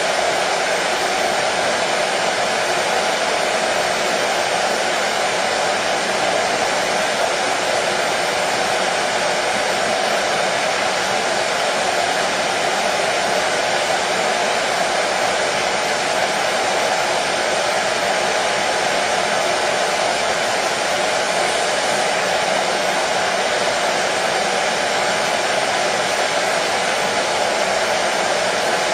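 Hair dryer running steadily, a continuous even rush of air and motor noise used as white noise to settle a colicky baby to sleep.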